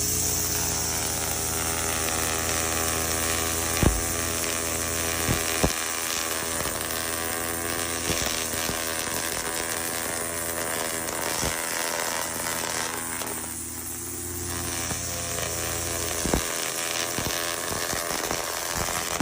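Lawn mower running steadily while mowing, with a few sharp knocks, and its sound dipping briefly about two-thirds of the way through.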